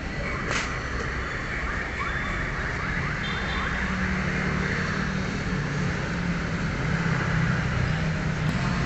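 A motor vehicle engine running nearby with traffic noise, a steady low hum that grows a little louder in the middle.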